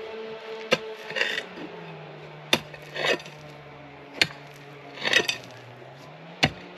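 John Deere 310 backhoe's diesel engine idling, its pitch sagging slightly and recovering, while a shovel strikes and scrapes through loose dirt full of broken brick and glass, about seven sharp clinks at irregular spacing.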